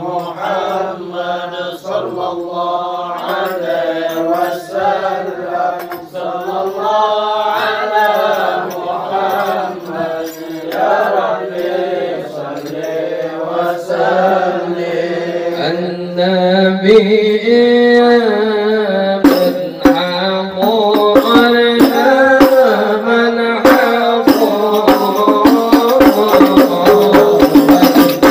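A group of voices singing sholawat together, unaccompanied at first. Hand-struck frame drums (terbang) of the al-Habsyi ensemble come in about sixteen seconds in and keep a quick, steady beat under the singing.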